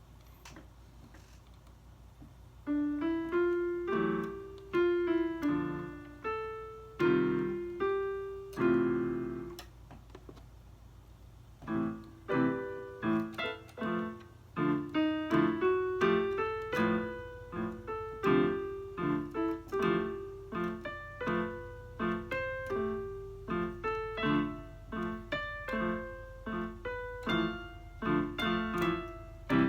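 Electronic keyboard played with a piano sound, one note or chord at a time, each note struck and fading. It starts about two and a half seconds in, pauses for a couple of seconds about ten seconds in, then picks up again with quicker notes, over a steady low hum.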